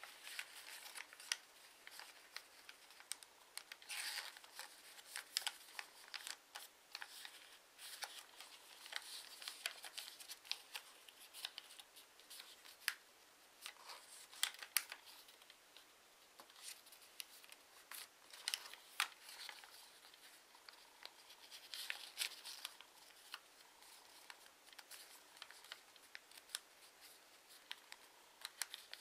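A sheet of paper being folded and creased by hand: quiet, irregular crisp rustles and sharp little clicks and crackles as the fingers press and slide along the folds.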